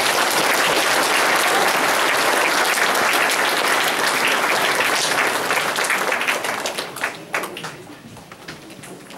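Audience applauding, a dense clapping that thins out about seven seconds in to a few scattered claps.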